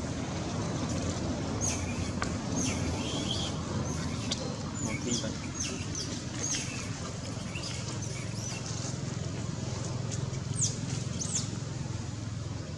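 Forest ambience: birds giving repeated short high chirps, each falling in pitch and scattered throughout, the two clearest near the end, over a steady low background rumble.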